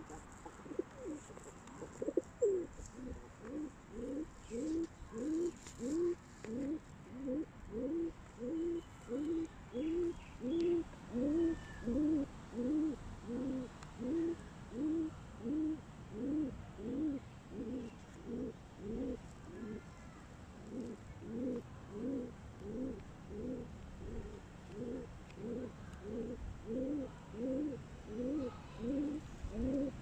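Rock pigeon cooing in a steady series of short, low notes, about two a second, with no break.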